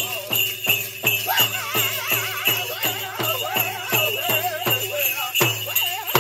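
Indigenous drum and song: a drum struck steadily about three beats a second under a singer's wavering voice, with bells jingling throughout.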